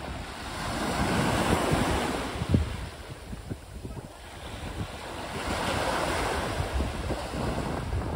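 Small waves breaking and washing up a pebbly beach. The surf swells twice, about four seconds apart, with wind buffeting the microphone underneath.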